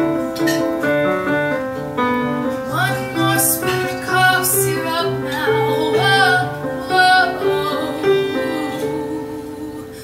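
Live female vocal singing a pop ballad with piano accompaniment. It ends on a long held note, and the music fades out near the end.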